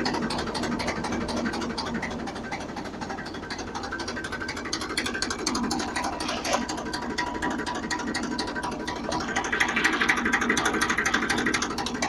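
Homemade single-row potato harvester running off a tractor's PTO: its roller chain drive, gearbox and welded steel-rod chain conveyor clattering in a fast, steady rattle, with the tractor engine running underneath.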